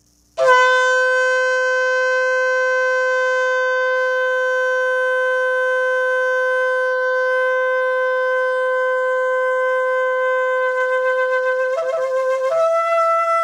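A long spiral-horned shofar blown in one long, steady blast that holds a single note for about eleven seconds, then wavers and breaks up to a higher note near the end.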